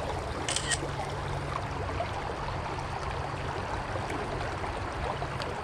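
Shallow creek water running over rocks and riffles, a steady rush. About half a second in there is a brief hiss.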